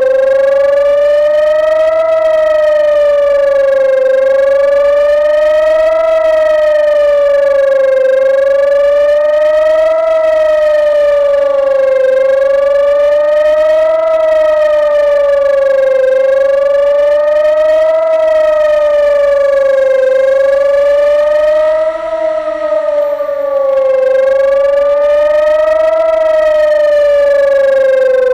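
Rooftop fire-station civil defense siren wailing, its pitch rising and falling evenly about every four seconds. This is the German warning signal, a one-minute rising and falling tone that tells the public to take warning and seek information. Near the end the pitch begins to fall away as the signal winds down.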